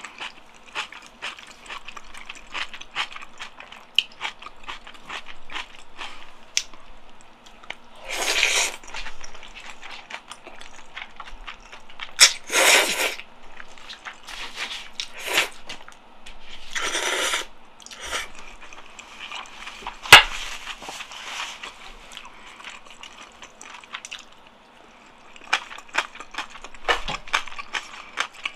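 Close-miked eating of black bean sauce noodles: wet chewing and smacking clicks throughout, broken by about four loud noodle slurps, with one sharp click about twenty seconds in.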